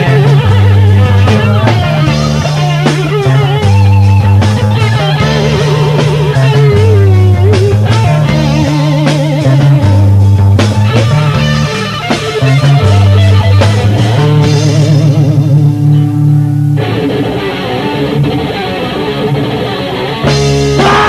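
Instrumental passage of a hardcore punk band's demo recording: electric guitar and bass riffing together with drums, with no singing. About seventeen seconds in the sound thins for a few seconds, then the full band comes back in near the end.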